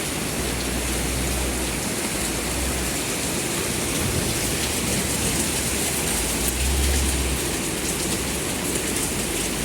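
Steady heavy rain, an even hiss, with a low rumble coming and going underneath.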